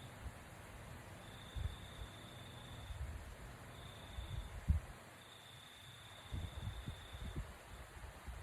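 Low, rough snoring rumbles from a sleeping person, coming irregularly, with a cluster of them near the end. A faint high steady whine starts and stops several times behind them.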